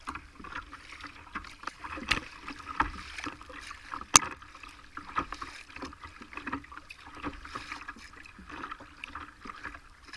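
Choppy water slapping and splashing against the hull of a Dagger Alchemy touring kayak under way, an irregular patter of small splashes with one sharp knock about four seconds in.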